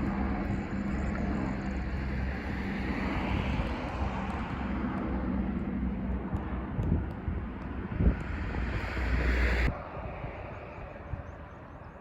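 Outdoor wind buffeting the microphone, with a steady low rumble underneath. The level drops abruptly almost ten seconds in, where the recording cuts to a quieter shot.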